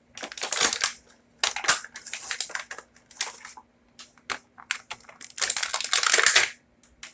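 Action figure's plastic and cardboard packaging crackling and crinkling in irregular bursts with sharp clicks as it is torn open by hand, loudest in a long stretch near the end.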